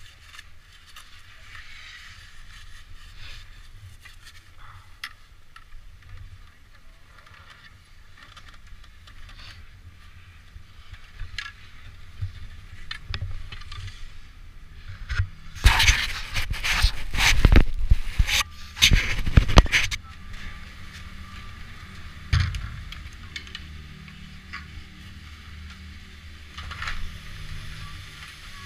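A chairlift ride heard from the chair: a steady low rumble with light wind noise, broken a little past halfway by about four seconds of loud knocking and rattling, then one more single knock shortly after.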